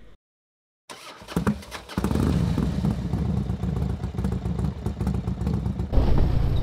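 A brief dropout to silence, a few clicks and knocks, then a motorcycle riding along with its engine running and wind buffeting the microphone, the wind getting louder near the end.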